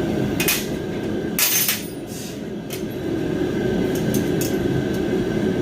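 A few sharp metallic clinks of hand tools and bolts against a steel welding cart during assembly, over the steady rushing noise of a propane heater.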